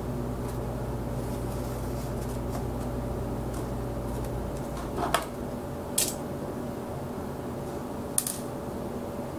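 Handling a laptop's hard plastic case: three short sharp clicks or taps about five, six and eight seconds in, over a steady low hum that cuts off about four and a half seconds in.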